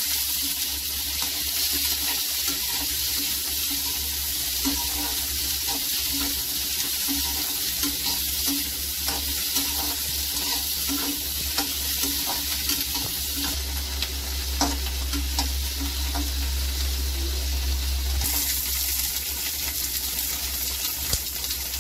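Chopped onion and capsicum sizzling in a little hot oil in a metal kadhai, being lightly stir-fried. A perforated metal spatula stirs them, scraping and tapping on the pan now and then.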